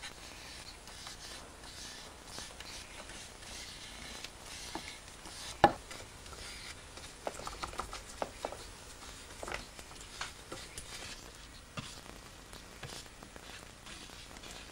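A spatula pressing and scraping paste lacquer into fine-weave cloth on a dry-lacquer bowl form: soft scraping with scattered small taps of the tool. There is one sharp tap a little over a third of the way in, and a run of taps a little after the middle.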